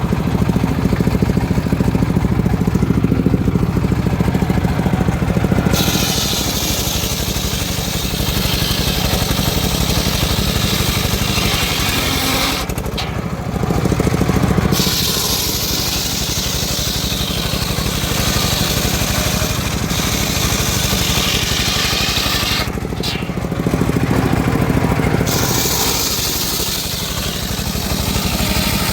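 Engine-driven homemade circular saw running steadily. About six seconds in, the blade starts ripping through teak, adding a loud hissing rasp over the engine hum. The rasp stops twice for a second or two, about halfway and near the end, between cuts.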